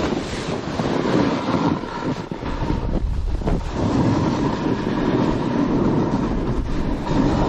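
Snowboard sliding and carving down a snow slope, its base and edges scraping over the snow, with wind noise on the camera's microphone that grows stronger partway through.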